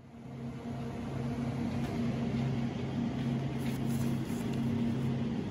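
Steady mechanical hum of a supermarket's background, its refrigerated display cases and ventilation, fading in over the first second.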